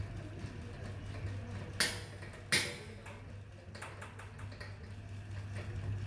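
Two sharp clicks, the second with a short ringing tail, and lighter ticks as a plastic drain hose fitting is worked into the stainless steel washing machine tub. A steady low hum runs underneath.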